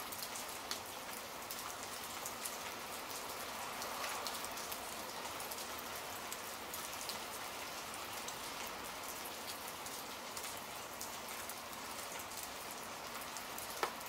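Steady rain pattering, many small drop ticks over an even hiss, with one sharper tick near the end.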